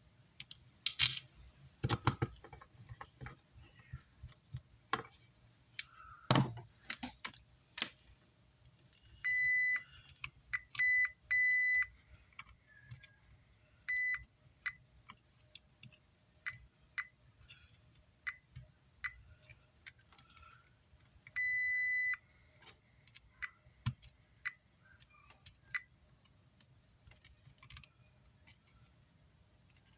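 Multimeter continuity beeper sounding in irregular beeps, some about half a second long and many very short, as test probes touch points on an amplifier circuit board. Light clicks and taps of tools and parts come before the beeping starts.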